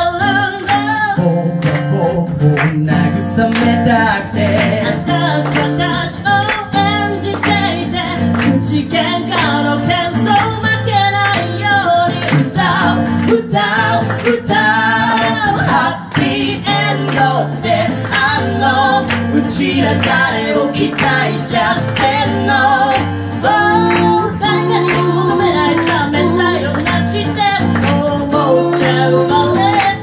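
A woman singing a song into a microphone, accompanied by a strummed acoustic guitar, played live through a small PA.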